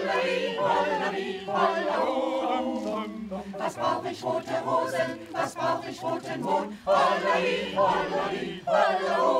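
Amateur choir singing a cappella, with no instruments. The singing dips briefly twice, about seven and nine seconds in, between phrases.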